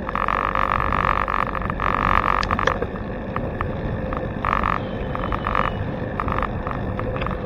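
Wind and road rumble on a bicycle's handlebar-mounted camera as the bike rolls along a paved road, with a buzzing rattle. The rattle is strong for the first few seconds, then cuts in and out in short spurts.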